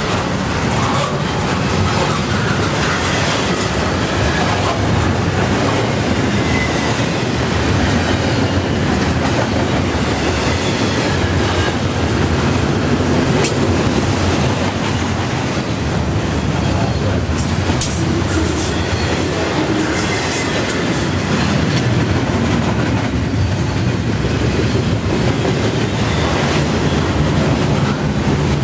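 Double-stacked container well cars of a long intermodal freight train rolling past: steady rolling noise of steel wheels on rail, with rapid clicks over the rail joints and a brief high-pitched wheel squeal about twenty seconds in.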